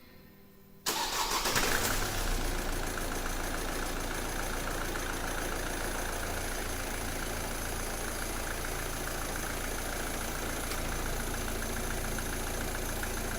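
Opel Astra 1.7 CDTI four-cylinder diesel engine starting about a second in, catching at once, flaring briefly and settling into a steady idle, running for the first time on a newly fitted timing belt.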